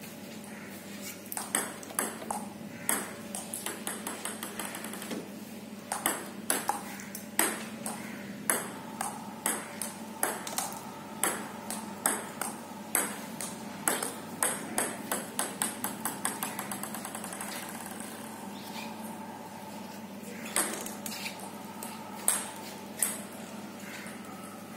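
Table tennis ball clicking off paddle and table in an uneven rally, with some quick runs of bounces and a lull of a few seconds past the middle. A steady low hum lies underneath.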